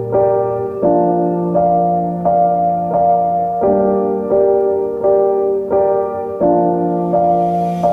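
Background piano music: sustained chords, a new chord struck about every 0.7 seconds.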